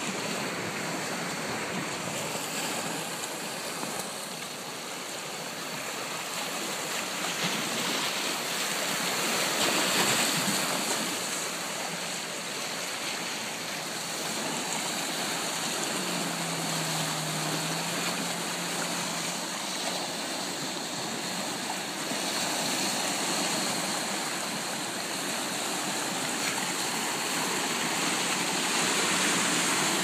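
Small bay waves breaking and washing against the shore, a steady rush of water that swells louder about ten seconds in and again near the end.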